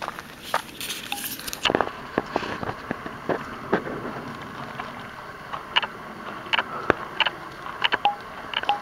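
Footsteps on a dirt and gravel hiking trail: irregular scuffs and steps over a steady hiss, with a brighter hiss in the first second and a half.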